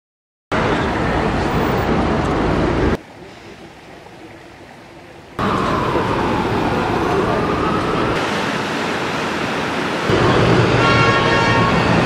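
City street traffic sounds in a string of hard-cut clips: steady vehicle and road noise, with a quieter stretch in the middle, a tone that falls and then rises in pitch, and a brief high pitched sound near the end.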